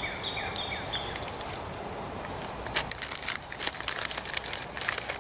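Crinkling and crackling of MRE accessory-packet wrappers being handled, a dense run of sharp crackles starting about three seconds in. Before that, a bird chirps repeatedly in short falling notes until about a second in.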